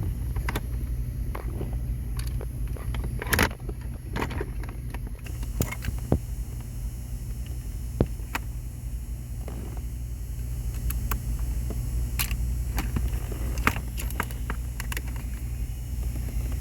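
Scattered sharp clicks and light knocks, about a dozen, over a steady low hum.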